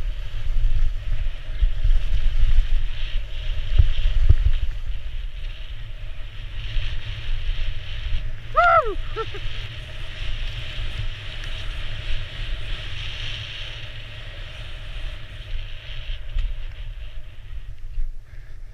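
Wind buffeting a head-mounted action camera during a fast ski descent, a heavy low rumble, with skis hissing through snow. It is loudest over the first few seconds. About halfway through there is one brief high call that falls in pitch.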